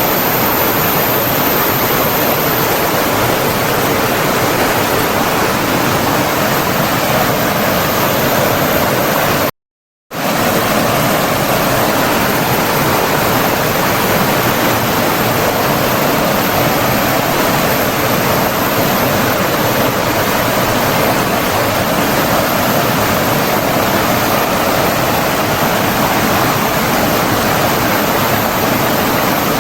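Steady rushing of flowing water, a stream or small waterfall running continuously in an even wash of noise. About a third of the way in the sound drops out completely for roughly half a second, then resumes as before.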